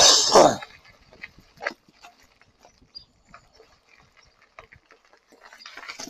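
A loud, congested throat-clearing noise from a rider with a head cold, lasting about half a second at the start. Then only faint, scattered clicks and rattles from the fat-tyred electric bike rolling over a gravel lane.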